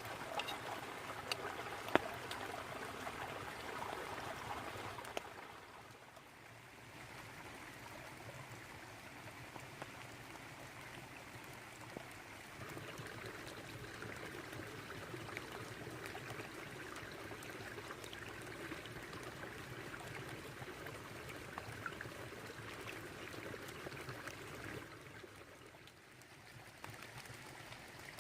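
Babbling brook: a steady rush of running water, with a few scattered sharp ticks. The water sound eases briefly about six seconds in and again near the end.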